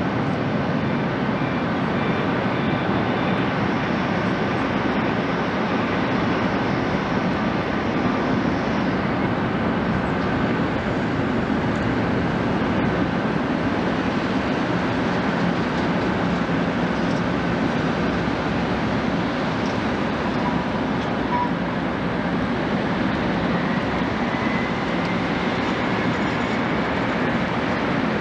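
Steady jet engine noise from an ANA Boeing 777-300 climbing out after takeoff, a broad rumble with a faint steady whine over it.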